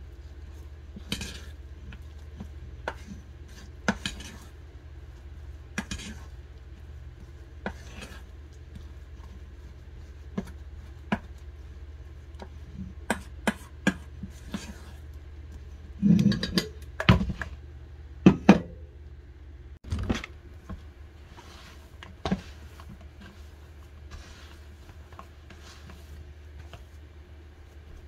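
Dough being kneaded and pressed by hand in a stainless steel bowl, with sharp knocks and clinks against the metal every second or two and a run of louder knocks about sixteen to twenty seconds in. A steady low hum runs underneath.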